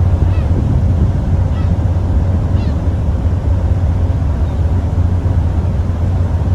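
Car ferry under way at sea: a steady low engine rumble with a rushing noise of water and wind over it. A few faint short high chirps sound in the first few seconds.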